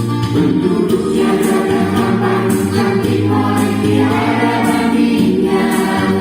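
Music with voices singing over steady, sustained low notes.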